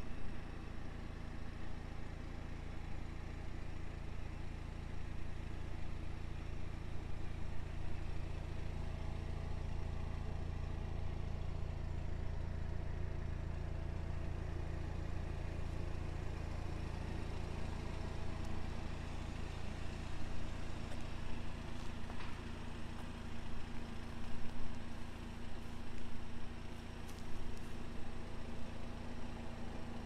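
The 2021 Toyota GR Supra's 2.0-litre turbocharged four-cylinder idling steadily, a low even hum. A few light clicks come in the last third.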